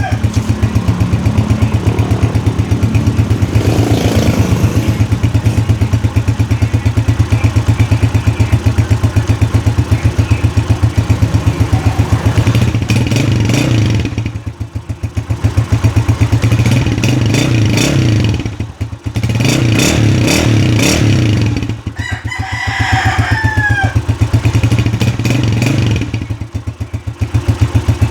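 A Honda TMX motorcycle's single-cylinder engine running at idle through a Platino stock exhaust pipe, with an even, rapid exhaust pulse. Its level dips and picks back up a few times, and a rooster crows once about two-thirds of the way through.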